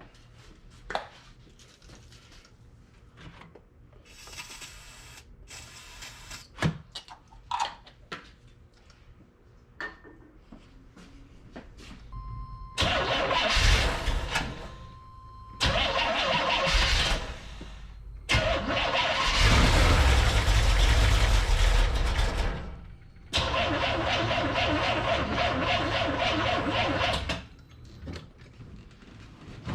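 Starter cranking a carbureted Corvette engine in four tries of about two to four seconds each, the first beginning about 13 seconds in, with short pauses between. The engine does not catch and run, which the owner takes for a fuel-delivery problem at the carburetor. Light clicks and handling noises come before the cranking.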